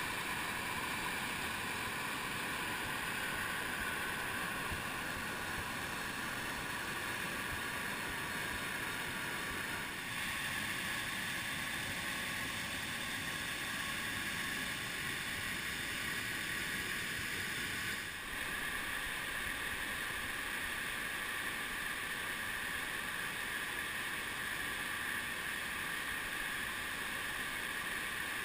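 Waterfall and whitewater rushing, a steady dense noise that shifts slightly in tone about ten and eighteen seconds in.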